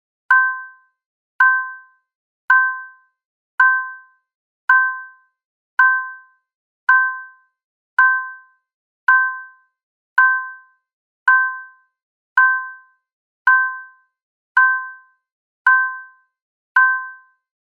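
Stock sound effect of a short chime-like ding, two pitches struck together, repeating evenly about once a second, with each strike dying away quickly.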